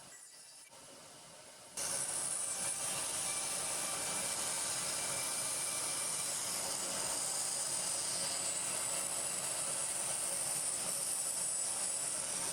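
A steady hiss that starts suddenly about two seconds in and holds even.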